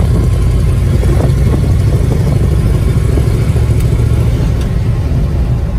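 Old GMC dump truck's engine running steadily under way, a loud low rumble heard from inside the cab.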